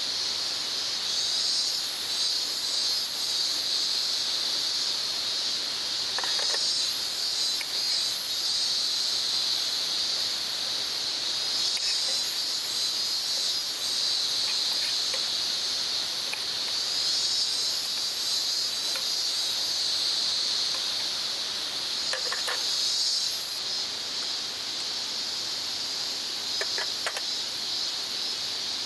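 Insects chirring in a steady, high-pitched chorus, with a higher shrill layer coming and going. A few brief faint sounds break over it.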